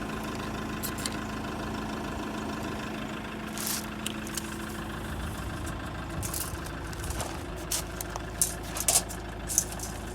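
Van engine idling steadily, with a few short sharp clicks in the second half.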